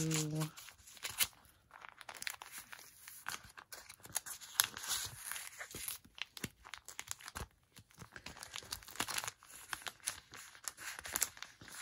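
Sticker sheets and their packaging being handled: irregular bursts of paper and plastic crinkling and rustling, with scattered light clicks and taps.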